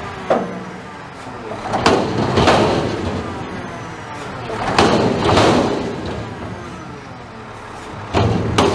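McNeilus front-loader garbage truck dumping a dumpster overhead: the engine runs under the hydraulic arms while the container is shaken in loud surges about every three seconds, trash clattering down into the hopper.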